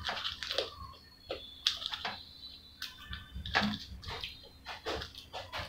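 Close-up eating of French fries: chewing with wet mouth sounds and irregular crunches, and fingers picking through the fries in the bowl.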